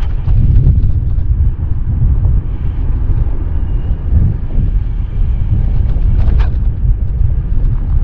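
Wind buffeting the microphone of a handlebar camera on a road bike riding at speed: a steady, loud low rumble, with a short sharper noise about six seconds in.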